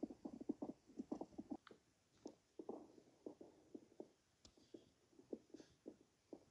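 Faint stomach gurgling: short, irregular bubbly pops and squelches, coming in quick clusters at first and thinning out after about two seconds.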